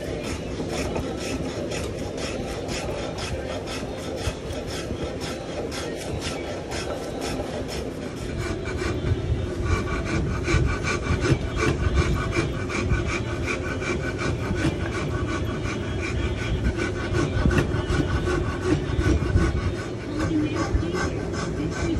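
Hand rasp scraping back and forth over a wooden gunstock in quick repeated strokes, shaping the grip. The strokes grow louder about nine seconds in and take on a ringing edge.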